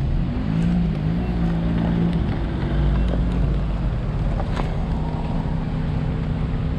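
An engine running steadily, a low hum that shifts slightly in pitch early on and then holds even.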